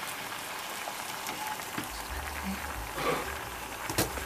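Pot of food in kombu stock simmering gently with a soft, even bubbling, with a few light clicks.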